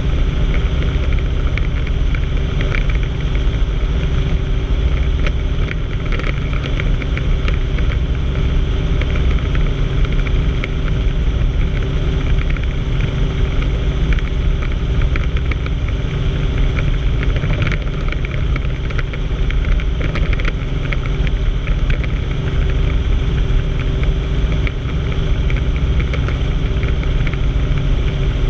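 Helicopter in flight, heard from inside the cabin: a steady drone of engine and rotor with a low rumble and a constant hum.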